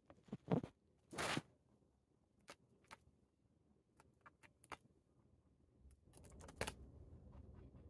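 Rabbit eating Chinese cabbage leaves close to the microphone: scattered crisp crunches and clicks of biting and chewing, with a louder tearing crunch about a second in. A low rustle comes in near the end.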